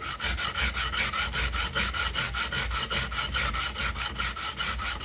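Hand file worked quickly back and forth over the welded repair on a Mk1 Escort bumper, an even scraping rhythm of many strokes a second, taking the weld back dead flat by hand instead of with an angle grinder.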